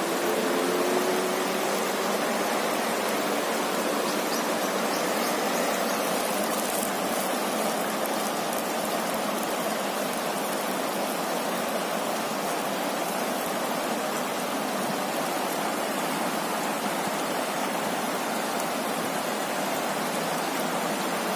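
Fast-flowing river rushing over rocks and rapids: a steady, even wash of water noise.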